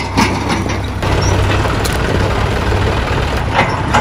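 Diesel engines of a JCB 3DX backhoe loader and a John Deere tractor running as the machines drive slowly over gravel, a steady low rumble.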